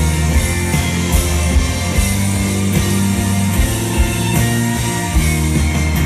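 Rock band playing live: an instrumental passage with a steady beat and sustained bass notes, without singing.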